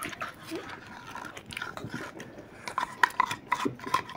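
Close-up eating sounds of ice cream: wet licking, lip smacking and biting, with irregular short clicks that bunch up about three seconds in.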